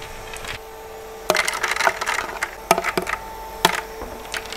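Ice cubes being dropped into the plastic water reservoir of an Arctic Air Ultra evaporative cooler: about six sharp clicks and clunks at irregular intervals, over a steady hum.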